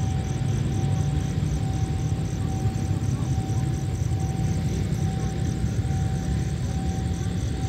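Steady low rumble of a diesel freight train approaching from a distance, with a pulsing mid-pitched tone that repeats about once a second and insects chirping high and fast.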